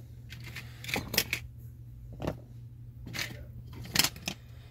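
Scattered small clicks and rustles of fly-tying tools and materials being handled and set down at the bench, over a steady low hum.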